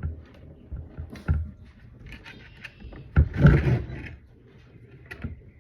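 Handling clicks and knocks from a soap loaf splitter as its tightening part is turned and worked by hand, with a louder scraping rattle a little past three seconds in. The part turns but does not tighten.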